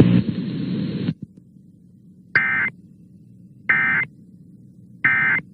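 Emergency Alert System end-of-message signal: three short bursts of SAME digital data tones, buzzy and about a second and a bit apart, marking the close of the tornado warning broadcast. Before them, a steady low hum cuts off about a second in.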